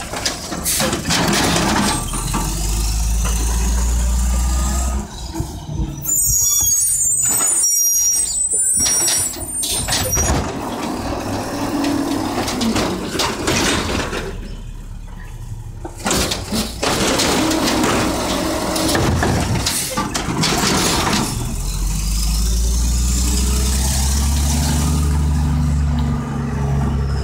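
Mack LE garbage truck with an Amrep automated side-loader arm working a cart: the diesel engine revs up twice with a rising whine as the hydraulic arm cycles. Between the revs come clattering knocks and an air-brake hiss.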